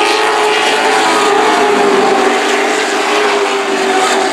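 A pack of short-track super trucks racing past, their engines blending into one loud, steady drone.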